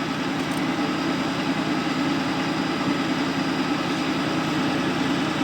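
An engine idling steadily, with a low, even running sound that does not change.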